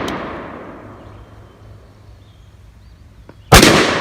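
A single shot from a short-barrelled .223/5.56 AR pistol about three and a half seconds in, loud, with a long echo rolling off after it. The first second holds the fading echo of the shot before.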